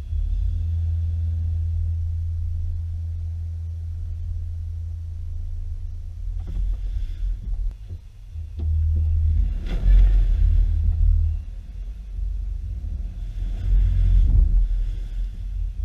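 Low, steady rumble of a lifted Subaru Impreza wagon creeping along a dirt track, picked up by a camera mounted on the outside of the car. A few short knocks and crunches come in the second half, where the rumble grows louder and more uneven.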